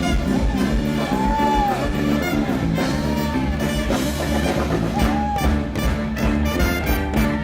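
Live band playing an instrumental passage over a steady drum beat, with a horn line.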